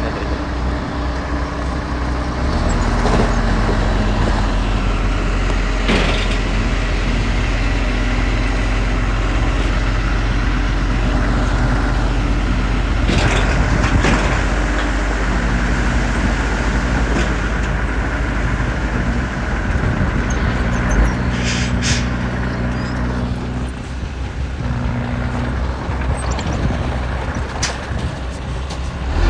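Heavy diesel engine of earthmoving machinery running steadily, with several sharp metallic clanks and knocks over it.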